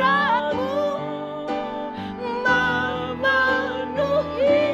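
Worship song: voices singing long held notes that slide gently in pitch, over guitar accompaniment.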